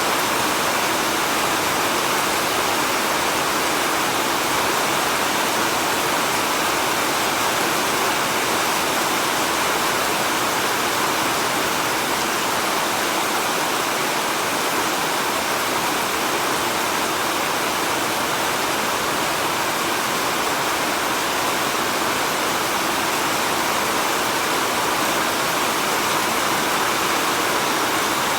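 Heavy rain falling steadily, a dense, even hiss with no single drops standing out.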